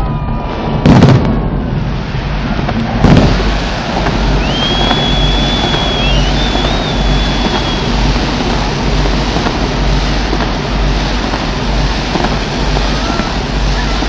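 Fireworks going off: two loud bangs about two seconds apart near the start, over a continuous din of many more explosions. A high whistle rises and then holds for a few seconds in the middle, as from a whistling firework.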